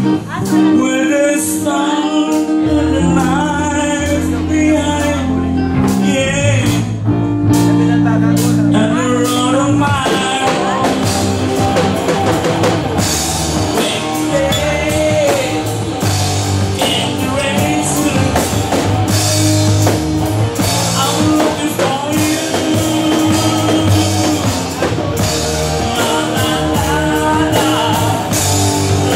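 A pop song with guitar, drums and a sung vocal melody, playing at a steady level.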